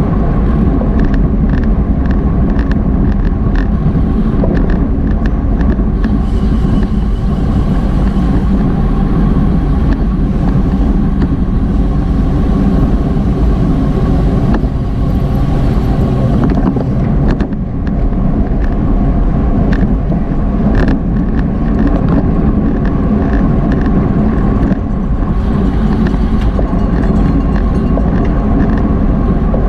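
Loud, steady wind noise on a bike-mounted action camera's microphone while riding at race speed, with a run of regular ticks over the first six seconds or so.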